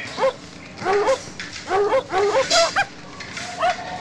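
Small curly-coated dog giving short, high whining yelps in quick groups of two or three, about a dozen cries in all.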